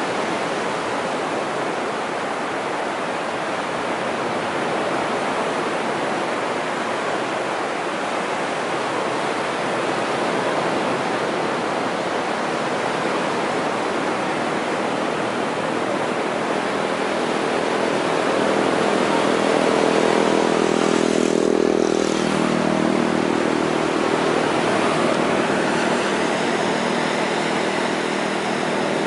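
Surf washing onto a sandy beach as a steady rush. A motor vehicle passes about two-thirds of the way through: its engine hum swells, peaks and fades away.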